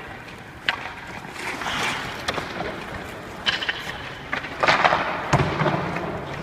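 Ice-rink sounds: skate blades scraping across the ice, with several sharp knocks; the loudest scraping and knocks come about five seconds in.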